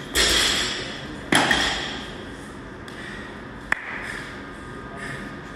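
Weight plates being loaded onto a steel Olympic barbell: two metal clanks, each ringing on for about a second, then a single sharp click.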